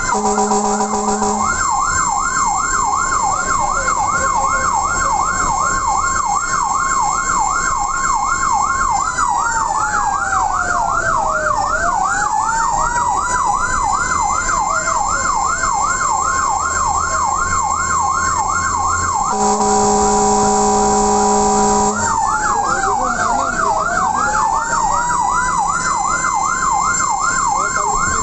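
A fire minitanker's electronic siren sweeping rapidly up and down about three to four times a second, twice sliding into a slow fall and rise before going back to the fast sweep. A steady blaring horn sounds for about the first second and a half and again for about two and a half seconds past the middle, the loudest part. The vehicle's engine rumbles underneath.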